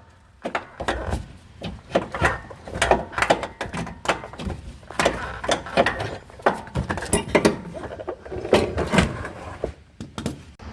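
Irregular metallic clanks and knocks of a starter motor and tools being handled and worked loose under a car.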